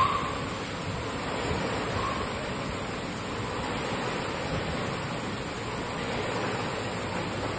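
Concept2 air rowing machine's fan flywheel whooshing under steady rowing, swelling with each drive stroke about every two and a half seconds.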